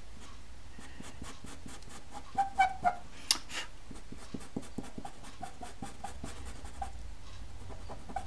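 Pastel pencil scratching on textured pastel paper in many short, quick strokes as the boat's hull is shaded dark. A few louder short sounds come close together about two and a half to three and a half seconds in.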